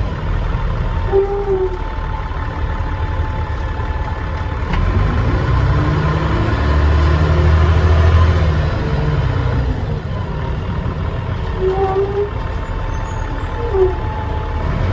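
Dennis Trident double-decker bus's diesel engine running and pulling, heard from on board, with a steady high turbo whistle over the low rumble; the engine swells louder in the middle. Two short beeps sound, about a second in and near the end.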